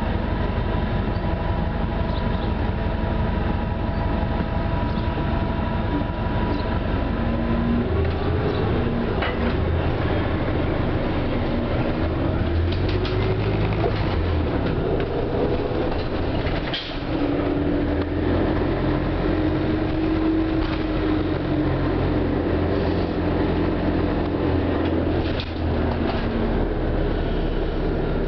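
Interior of a 1996 New Flyer C40LF city bus under way, its Detroit Diesel Series 50G natural-gas engine and drivetrain running with a whine that glides up in pitch, over road noise and body rattles.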